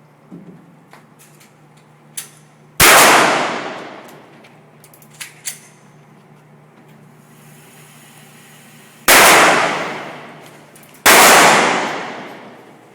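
Three gunshots, each followed by a long ringing decay lasting about a second; the last two come about two seconds apart. A few fainter sharp pops fall between them.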